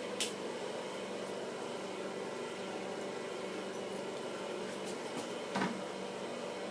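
Steady machine hum with a few constant tones, the kind a running appliance or fan makes. There is a sharp click just after the start and a dull knock about five and a half seconds in.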